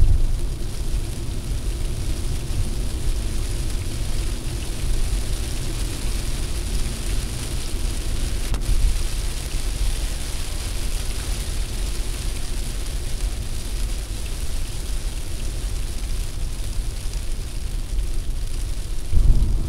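Steady in-cabin noise of a car driving at about 80 km/h in rain: a low rumble of tyres and engine under an even hiss of rain on the windscreen.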